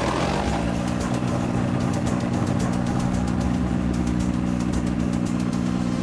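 Engine of an ultralight motorised hang-glider trike catching on a pull start, its pitch rising briefly before it settles into a steady idle.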